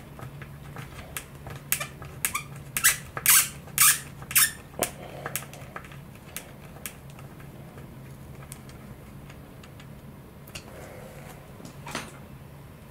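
Hand screwdriver turning a small self-tapping screw into a 3D-printed carbon PLA servo tray. A run of short, sharp squeaks comes between about two and four and a half seconds in, then a few scattered clicks, with one louder click near the end.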